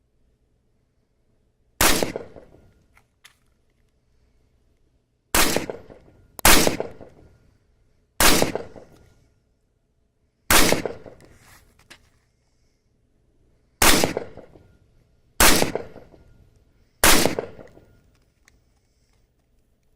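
AR-15 rifle fired in slow, single semi-automatic shots: eight sharp reports at uneven intervals of one to three seconds, each trailing off in about a second of echo.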